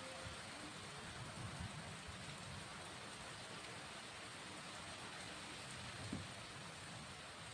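Steady rain falling, a soft even hiss, with one dull thump about six seconds in.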